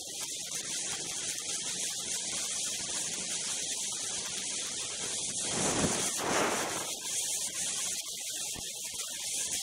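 Steady hissing rush of wind over the camera's microphone on a moving snowmobile, swelling into a louder whoosh about six seconds in.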